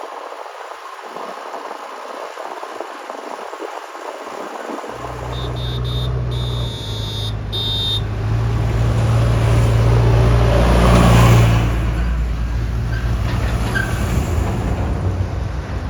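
Heavy diesel engine of a construction machine or tipper truck running hard. It comes in abruptly about five seconds in, swells to its loudest about two-thirds of the way through, then holds steady. Before it there is only a hissy outdoor noise.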